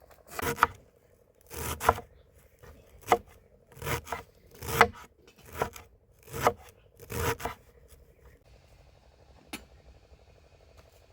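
A kitchen utensil scraping during food preparation: about a dozen short scraping strokes, some in quick pairs, roughly one a second, then a single sharp click near the end. A faint steady hum runs underneath.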